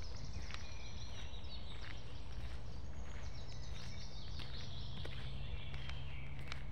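Several small songbirds singing, with repeated high chirps and trills throughout, over a steady low rumble. Footsteps on a dirt path give occasional soft clicks.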